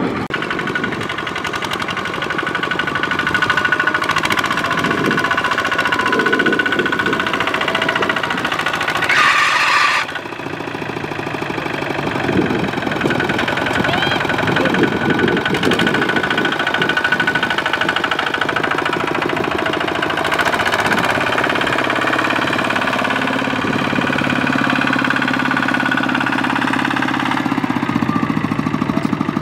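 Kubota walking tractor's single-cylinder diesel engine chugging steadily as it hauls a trailer loaded with rice sacks. There is a short hiss about nine seconds in.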